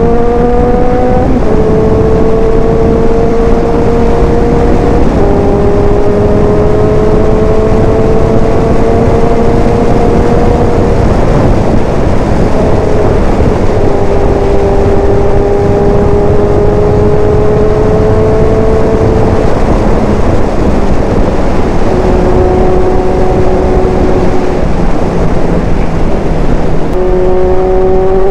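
A big motorcycle's engine pulling at highway speed, its pitch climbing slowly through each gear and stepping down at every upshift, with a few short spells where the engine note drops away. Heavy wind and road noise run underneath throughout.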